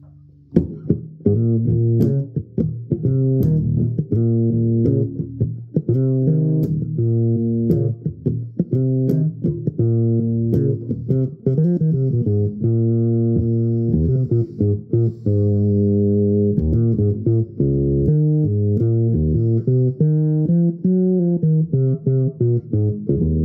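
Epiphone fretless electric bass guitar played fingerstyle: a continuous line of plucked bass notes, starting about half a second in.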